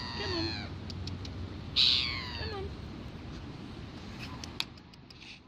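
Gulls calling: two drawn-out calls that fall in pitch, the second, about two seconds in, louder than the first. A single sharp click follows later.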